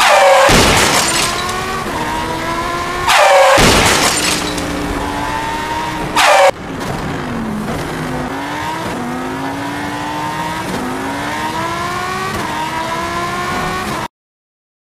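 Dubbed car sound effects: an engine accelerating, its pitch climbing and dropping back again and again as it shifts up through the gears. There are three loud noisy bursts, about a second in, around three to four seconds in and briefly about six seconds in. The sound cuts off suddenly shortly before the end.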